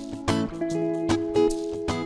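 Background music led by a plucked guitar, with a steady beat.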